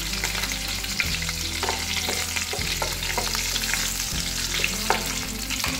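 Hot oil sizzling and crackling in a stainless steel kadai as dried red chillies and bay leaves fry in it, a steady hiss full of tiny pops. A wooden spatula stirs through the oil, with a few light knocks against the pan.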